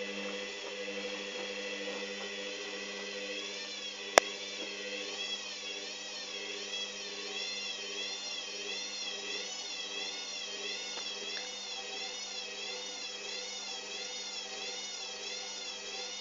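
Hoover Dynamic washing machine's motor running in a spin, with a steady hum and a high whine whose pitch starts to waver up and down about once a second a few seconds in. One sharp click about four seconds in.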